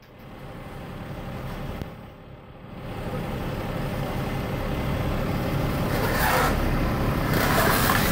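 MAN truck's diesel engine running under load as it creeps forward, its rumble growing louder about three seconds in. Two short bursts of noise come near the end.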